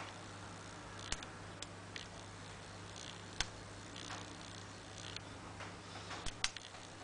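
Hook pick working the pin tumblers of a five-pin padlock under tension: scattered light scraping and sharp clicks as the pins are raised and set, about half a dozen clicks standing out.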